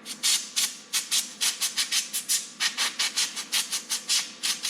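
Rapid back-and-forth scrubbing strokes, about four or five a second, cleaning toner off a copier's corona charger grid.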